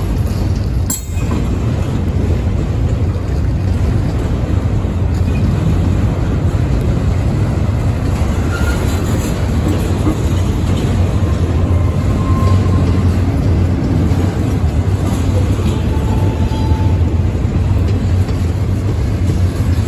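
CSX intermodal freight train's double-stack container cars rolling past, a loud, steady rumble of wheels on rail.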